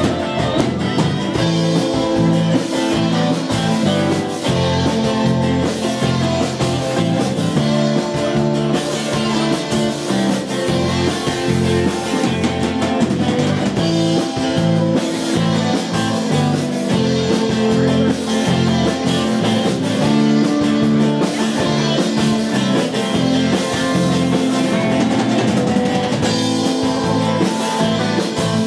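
Live rock band playing: acoustic and electric guitars over drums with a steady beat.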